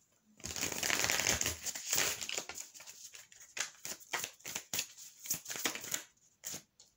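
Tarot cards being handled and laid out close to the microphone. A dense crinkly rustle lasts about a second and a half, then comes a run of short, sharp rustles and clicks.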